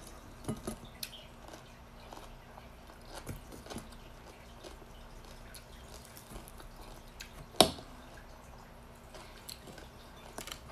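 Quiet eating sounds: fingers picking fried fish and rice from a plate and soft wet chewing, with scattered small clicks and one sharp knock about seven and a half seconds in.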